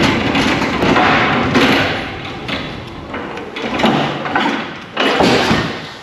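Electric ride-on pallet truck rattling and clunking as it drives and turns on a concrete floor, in loud uneven surges, with a sudden louder burst about five seconds in.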